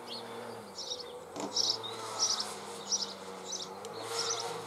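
A small bird chirping, with short high chirps repeating about every half second, over a low steady hum. A faint click comes about a second and a half in.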